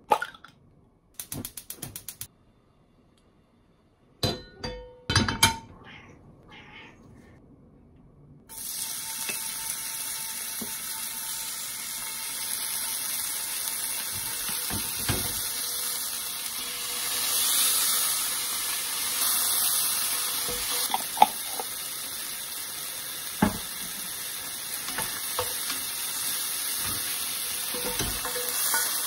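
Sliced garlic sizzling steadily in hot oil in a frying pan, with a few sharp ticks as it is stirred. Before the sizzling starts there is a quick run of clicks and a few knocks, as the garlic is spooned out of its jar into the pan.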